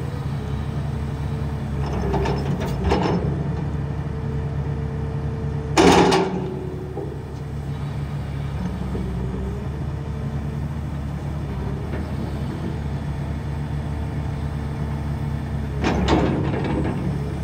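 Case 300 hydraulic excavator running at working revs, its diesel engine droning steadily under a steady hydraulic whine while the boom and bucket move. Short clunks break in a few times: a couple about two to three seconds in, the loudest about six seconds in, and another near the end.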